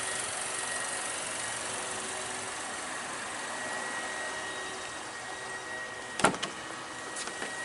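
2016 Buick Cascada's 1.6-litre four-cylinder engine idling steadily, with one sharp click about six seconds in.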